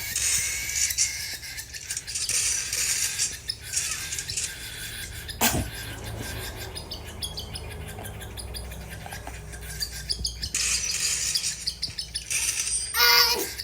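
Pet parrot making raspy squawks and chirps, with a sharp click about five and a half seconds in and a louder pitched call near the end.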